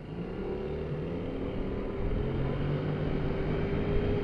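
Kymco Like 200i scooter's single-cylinder engine pulling away and gathering speed, its steady note rising slightly in pitch and growing louder, with rushing wind noise building alongside it.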